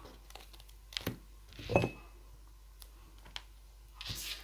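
Scattered small taps and clicks of paper craft pieces and a glue bottle being handled on a cutting mat, the loudest a knock a little under two seconds in, with a short rustle near the end.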